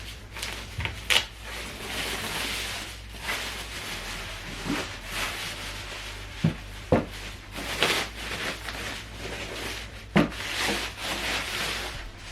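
Packaging being handled and pulled off during unboxing: drawn-out rubbing and rustling, with a few light knocks, about five in all.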